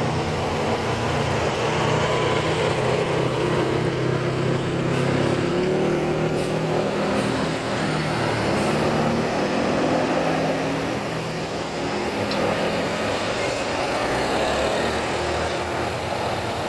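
Large diesel bus passing close by on the road: steady engine running with tyre and road noise, the engine note climbing a little in the middle.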